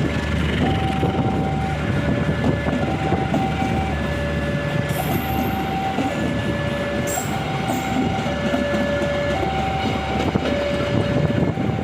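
A train passing close by, its wheels clattering over the rail joints in a steady loud rumble. Over it a two-tone warning alarm alternates high and low, each tone lasting about a second.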